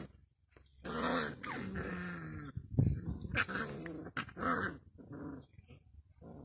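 A litter of puppies play-fighting and growling: one longer growl about a second in, then a run of shorter growls and scuffles.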